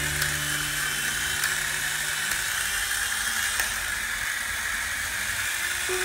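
Toy remote-control helicopter's small electric motor whining and its rotor blades whirring steadily.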